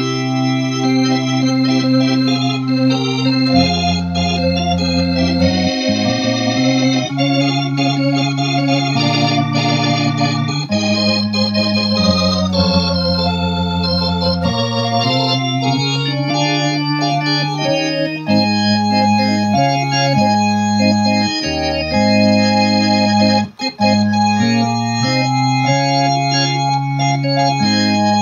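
A 1965 Vox Continental combo organ, played through a Boss RT-20 rotary-speaker effect, plays a gospel song in held chords over bass notes that change every second or two. The sound breaks off briefly about three-quarters of the way through.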